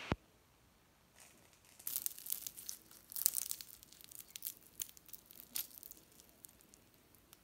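Crisp pastry shell of a chicken briouat crackling and crunching as it is torn apart by hand, a run of quick crackles lasting a few seconds, loudest about three seconds in. A single sharp click at the very start.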